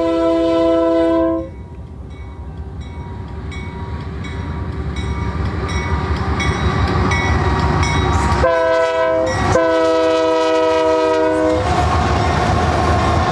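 Union Pacific GE C44AC diesel locomotive sounding its multi-note air horn while approaching. A blast ends about a second in, then the engine and wheel rumble builds as it nears. It gives a short blast and then a long one about two-thirds of the way through, and passes close by with a loud rumble of engine and wheels on the rails.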